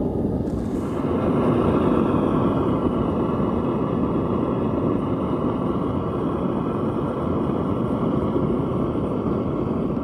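Gas blowtorch burner firing a homemade refractory-lined mini smelting furnace, a steady rushing noise that grows a little louder about a second in, as the furnace is brought up to melting heat.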